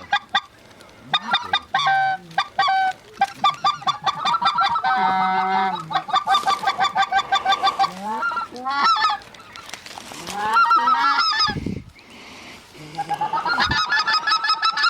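Goose honking: many rapid, overlapping honks and clucks, the calling of a goose hunt as a flock works overhead, with a brief lull and a couple of low thumps near the end.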